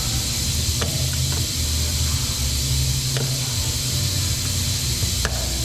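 A few faint clicks of a flat-head screwdriver prying at the plastic square tab inside a car's door handle, over a steady low rumble and hiss.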